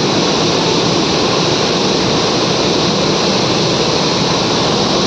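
Steady, loud rushing din of running flour-mill machinery, unbroken and even throughout.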